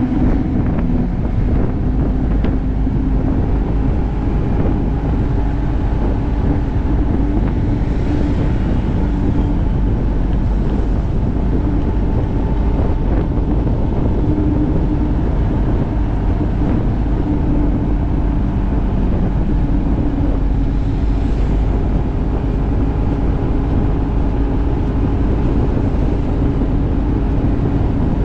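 Motorcycle engine running at a steady cruising speed, its note holding even, with wind rumbling on the microphone.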